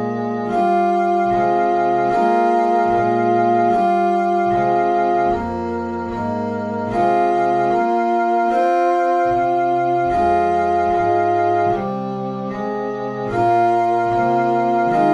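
Instrumental canon played on sustained, organ-like keyboard tones: several overlapping voices hold notes that change every second or so, forming slowly shifting chords, with two brief softer passages.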